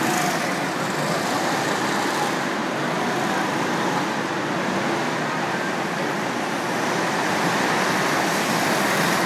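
Ice karts driving around an indoor ice track: a steady, even noise of kart motors and tyres on the ice, with no single pass standing out.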